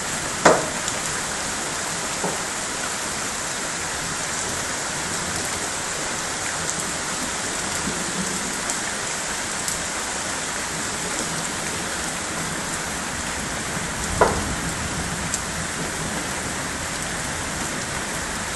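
Heavy rain mixed with hail pouring steadily onto a waterlogged paved yard and garden plants. Two sharp knocks stand out, one just after the start and one about three-quarters of the way through.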